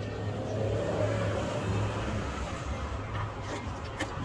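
Steady low background rumble and hum, like distant traffic, with a few small clicks near the end as the earbud and its cable are handled and set down on the mat.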